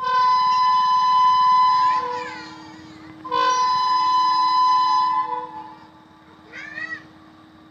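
Horn of an approaching Indian Railways electric locomotive sounding two long, steady blasts of about two seconds each, the second starting about a second after the first ends.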